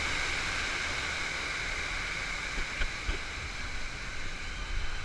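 Artificial waterfall pouring into churning rapids right beside a river-rafting ride's raft: a steady rushing of water that eases slightly toward the end, with a couple of short knocks about three seconds in.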